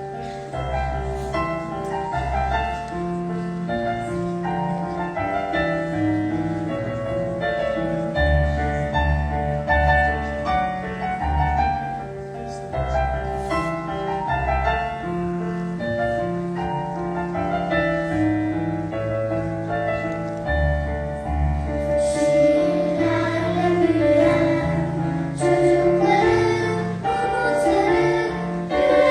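Piano playing a steady accompaniment, and about three quarters of the way through a children's choir comes in singing over it.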